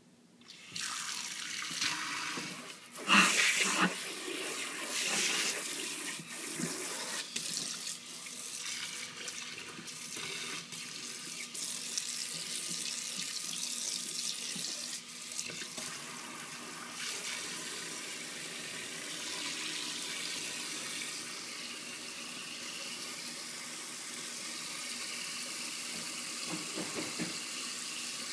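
Kitchen tap running into a stainless steel sink, water pouring and splashing onto a paper towel lying in the basin. It starts about a second in, splashes loudest around three to four seconds in, then settles into a steady pour.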